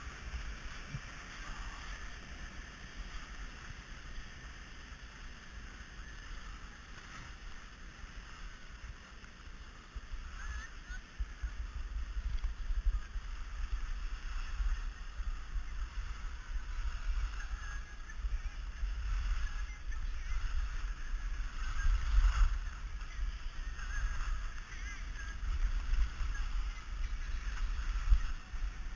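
Wind rumbling and buffeting on a GoPro Hero 2 action camera's microphone while skiing downhill, with gusty swells. It is quieter at first and grows louder about ten seconds in as the run gathers speed.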